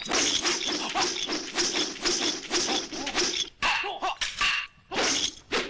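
Rapid clacks of wooden fighting weapons striking one another: a three-section staff against nunchaku and tonfa. The hits come about four to five a second, then slow to a few spaced hits after about three and a half seconds.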